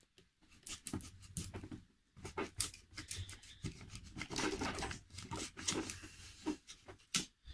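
A flat metal knife being worked and pried between a glued fretboard and an Epiphone Les Paul neck to separate them, giving irregular scraping and clicking from wood, glue and steel.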